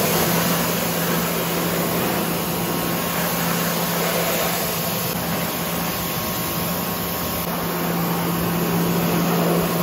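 Sun Joe SPX3000 electric pressure washer running, its wand spraying a steady hiss of water onto a car wheel and into the wheel well, over a steady motor hum. The spray starts sharply at the beginning.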